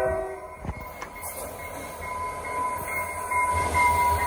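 Portland & Western EMD GP40-2 diesel locomotive passing close by: its horn blast cuts off just after the start, then the diesel engine running and track noise, with a steady high wheel squeal that grows louder as the locomotive draws alongside.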